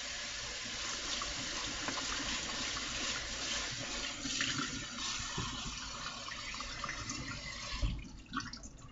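Kitchen tap running into a stainless steel sink as lettuce is rinsed in a plastic strainer, a steady hiss of water with small clicks of handling. The water cuts off about 8 seconds in.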